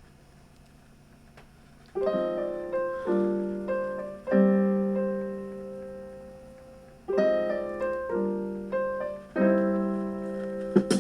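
Piano music played from a CD through a boombox speaker: slow chords, each struck and left to ring and fade. It starts about two seconds in, after a faint hiss.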